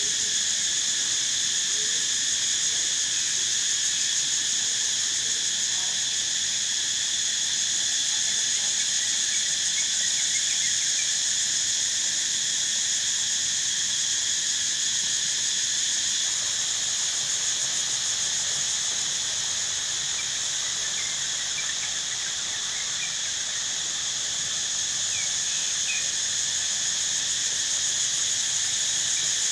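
Insect chorus: a loud, steady, shrill drone of several high pitches at once, with a few faint short chirps in the latter half.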